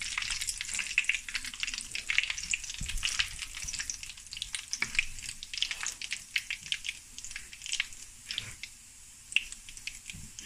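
Cumin seeds and dried red chillies sizzling and crackling in hot oil for a tadka (tempering), stirred with a spoon at first. The crackling thins out and gets quieter toward the end.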